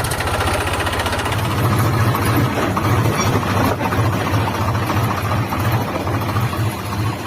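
Small engine of a mini tractor running steadily with a rapid, even knocking chug.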